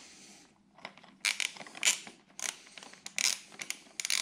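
Socket ratchet clicking in short runs on an electric scooter's rear axle nut as the nut is worked loose; sharp, irregularly spaced clicks starting about a second in.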